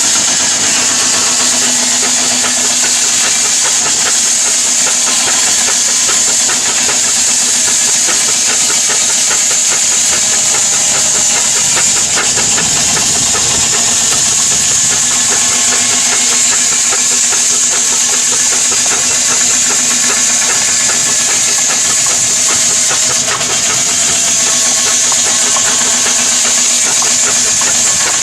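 An engine running steadily, its firing heard as a fast even rhythm, under a constant high hiss.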